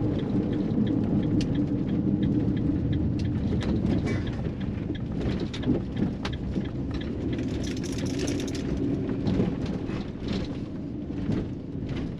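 Ram ProMaster campervan driving, heard from inside the cab: a steady low road and engine rumble, with many small clicks and rattles scattered through it and a short hiss about eight seconds in.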